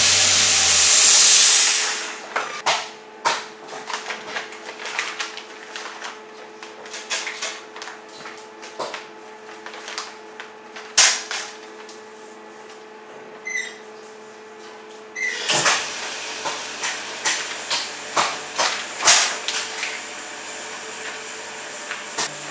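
Plastic vacuum bags rustling and food containers being knocked and set down in the chamber of a stainless-steel vacuum packing machine, with many sharp clicks. About two-thirds of the way in, a knock is followed by a steady machine hum: the lid shutting and the vacuum pump running.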